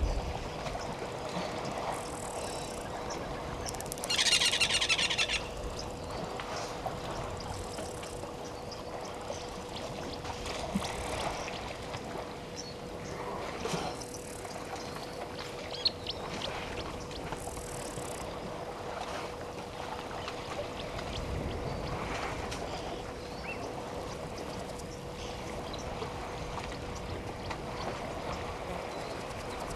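Elephants splashing and sloshing as they wade, drink and bathe in a waterhole, with water dripping and pouring off them. A shrill trilling call rises over it for about a second and a half about four seconds in, against a faint steady hum.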